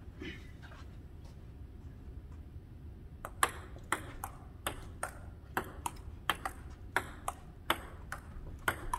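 Table tennis rally: the ball clicks sharply, alternately off the paddles and the tabletop, starting about three seconds in and going on at roughly three clicks a second.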